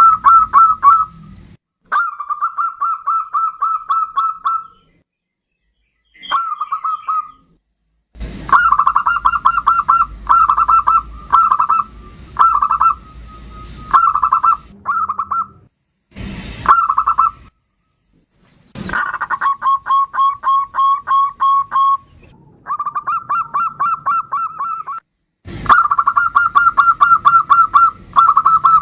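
Zebra dove (perkutut) singing its rapid, stuttering cooing song in the bodronoyo style. It comes as repeated phrases of quick pulsed coos, broken several times by sudden, complete silences.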